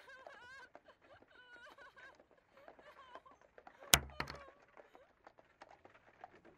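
Faint chirping and trilling calls, then a single sharp thunk about four seconds in, the loudest sound, with a short low rumble after it.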